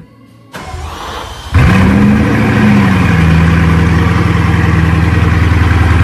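Bugatti Chiron's quad-turbo W16 engine being started. After a brief hush and about a second of starter cranking, it fires about a second and a half in with a short rev flare that rises and falls back into a steady idle.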